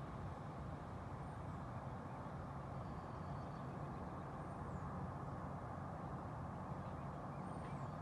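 Steady low rumble of distant traffic, with a few faint, short, high bird chirps about a second in, around three seconds in and near the end.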